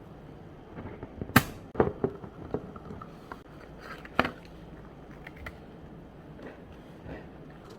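A handful of sharp clicks and knocks from objects being handled: the loudest comes about a second and a half in, a quick cluster follows, and another sharp knock comes about four seconds in, over a low steady background.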